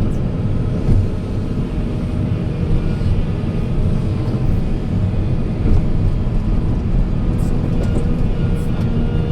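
Heavy construction machine's engine running steadily with a low rumble.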